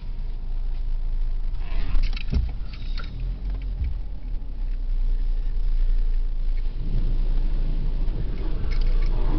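Low rumble of a car heard from inside its cabin as it rolls slowly into a touchless car wash bay, with a couple of brief knocks about two and three seconds in. From about seven seconds the wash's water spray starts hitting the car, a rising hiss over the rumble.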